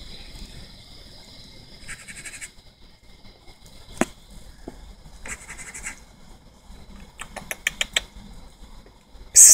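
Raccoon calling in two short raspy chitters, then a quick run of clicks and a sudden loud burst near the end, over a steady high-pitched hum.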